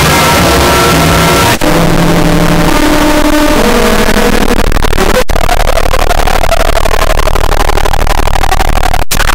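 Deliberately overdriven, clipped 'earrape' audio: a short music jingle blown out into harsh, loud distortion. It breaks off briefly about one and a half seconds in, again around the middle, and once near the end.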